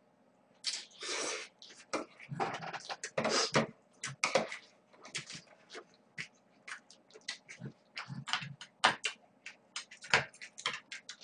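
Close-miked eating of cold spicy noodles: a long slurp about a second in, more slurping for the next few seconds, then wet chewing with many short lip smacks and clicks.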